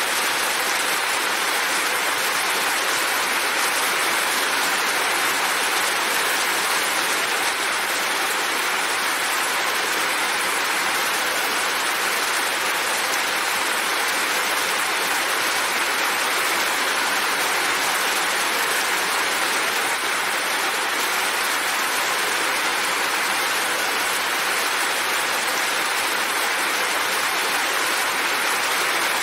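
Heavy rain falling steadily, with water running off a roof edge: an even, unbroken hiss.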